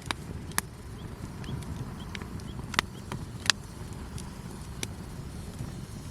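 Wood campfire burning, sharp crackles and pops over the steady low rush of the flames, four of them standing out loudly.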